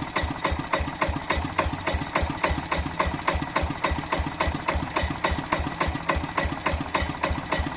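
Vintage Yanmar diesel engine running at low speed with a steady, regular diesel knock, several sharp knocks a second.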